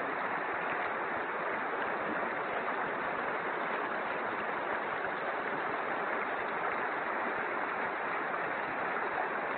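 Swollen floodwater rushing in a muddy river, a steady, even rush of water noise with no breaks.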